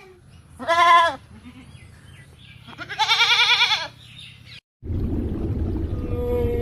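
A farm animal calls twice, each call about a second long with a wavering, quavering pitch. Near the end, after a brief break, a steady low rumbling noise begins.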